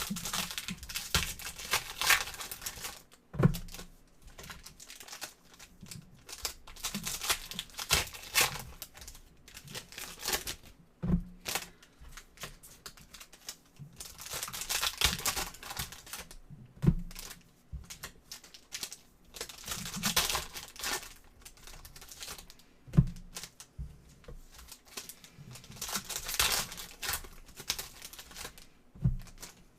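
Foil trading-card packs being torn open and crinkled, one after another about every six seconds, each followed by a short knock.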